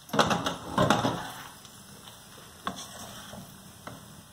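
Wooden spatula stirring and scraping through cooked rice in a nonstick frying pan: two scraping strokes in the first second and a half, then a couple of light taps against the pan.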